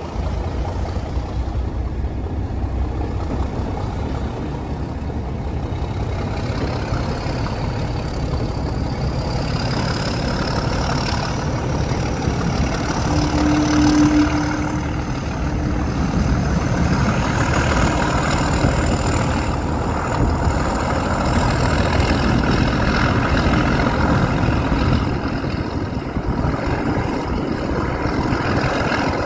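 Class 31 diesel-electric locomotive's English Electric diesel engine running hard and steady. A high whistle climbs slowly in pitch over several seconds, and a short steady tone sounds about halfway through.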